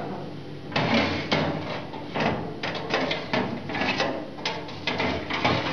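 Irregular metallic knocks and clatter of an oven door, rack and baking tin as a cheesecake is put into a hot oven and the door is shut.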